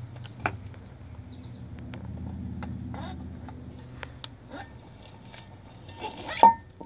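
Propeller with a Flo Torq II hub kit being slid along the greased splined prop shaft of a Mercury outboard: scattered light clicks, then one sharp clunk with a short ring a little over six seconds in as the prop goes onto the shaft.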